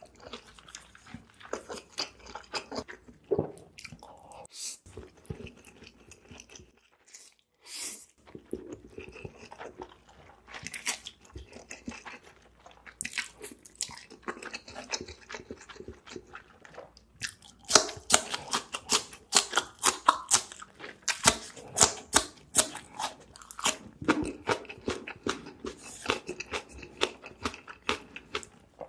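Close-miked chewing of food: a run of wet, irregular mouth clicks, growing denser and louder a little past halfway.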